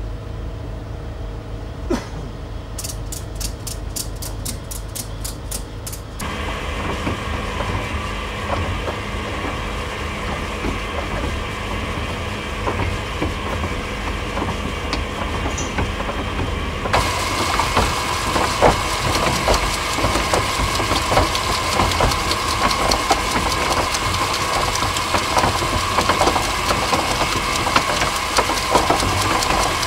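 A sailing boat's anchor windlass hauling in the anchor chain: a steady motor hum with the chain links clattering through, over a low engine rumble. Near the start, a run of about a dozen evenly spaced clicks.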